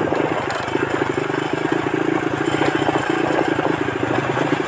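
Motorcycle engine running steadily at low speed while riding, a fast, even pulsing hum over road and wind noise.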